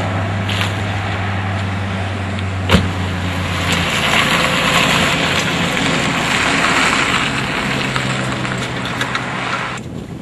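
A car engine running with a steady low hum, a single sharp knock about three seconds in, then a rushing engine and road noise as the car drives; the sound drops off abruptly near the end.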